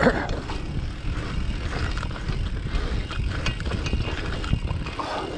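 Bike riding fast around a pump track, heard from a handlebar-mounted camera: a steady low rumble of tyres rolling and wind on the microphone, with faint clicks and rattles from the bike.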